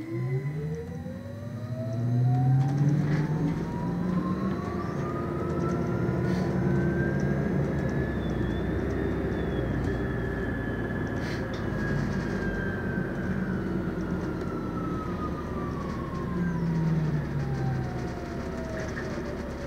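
MAN Lion's City Hybrid bus under way, heard from inside: the electric drive whine rises steadily in pitch as the bus pulls away and speeds up, holds high for a few seconds, then falls as it slows. Underneath runs a low engine drone and road noise.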